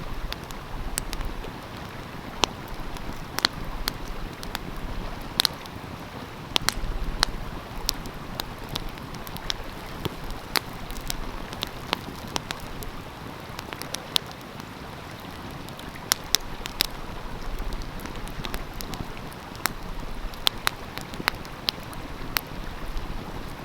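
Wood fire crackling with sharp, irregular pops and snaps, over the steady rush of a flowing stream.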